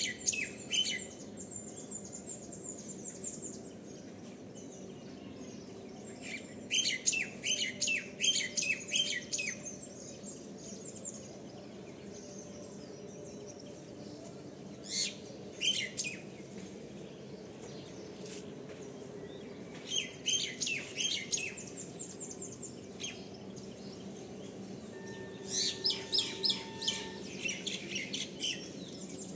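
Small birds chirping in quick clusters of rapid high notes, five times over, with quieter gaps between, above a steady low background hum.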